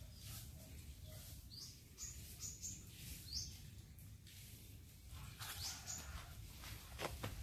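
Small birds chirping: short, quick rising calls, several in a row, then a pause and two more, over a low steady outdoor rumble. A few footsteps near the end.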